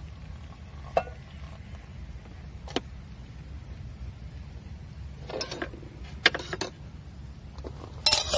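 Scattered clinks and clatter from a metal camping pot and its lid being handled: single clicks early on, a short run of clatter past the middle, and the loudest clatter near the end. A steady low rumble runs underneath.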